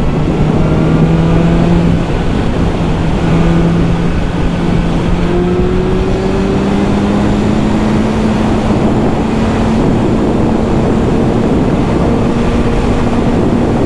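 BMW S1000R's inline-four engine pulling hard in sixth gear, its pitch climbing slowly and steadily as speed builds, under heavy wind rush.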